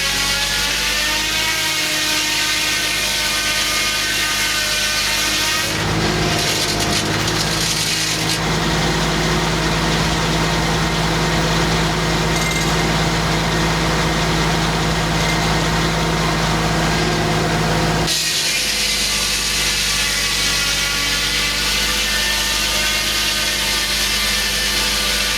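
Homemade circular sawmill running and sawing a big white pine log, a steady machine drone with the blade's ripping through the wood. The sound shifts about six seconds in and changes back about eighteen seconds in.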